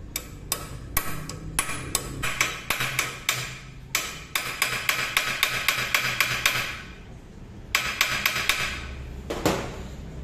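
Repeated light hammer blows on metal, about two to three a second, driving a tap into the broken bolt in a motorcycle's lower fork bracket held in a vise; a brief pause, a few more blows, then one last single strike near the end.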